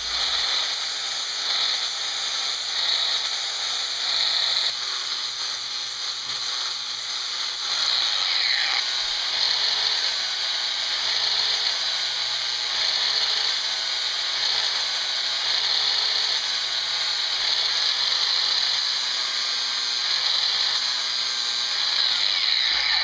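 Electric angle grinder with a flap disc grinding down the cast aluminium housing of a Jeep 4.7 throttle body, to clear the intake manifold: a steady high motor whine with a grinding hiss, the pitch wavering slightly as the disc is pressed on the metal.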